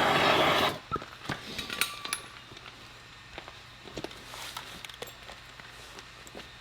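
A loud, steady power-tool noise cuts off suddenly under a second in. Then come scattered light metallic clinks and taps, as tools and wheel hardware are handled, over a faint steady low hum.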